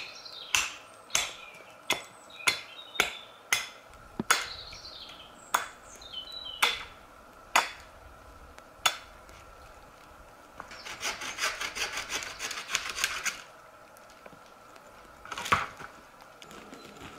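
Hatchet chopping wood: about a dozen sharp blows at a steady pace, then a couple of seconds of fast scraping, then one last blow near the end.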